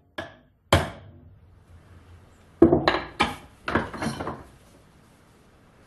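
Short, sharp knocks and clatters of hard objects, about seven in all: two in the first second, then a quick cluster of five between about two and a half and four seconds in.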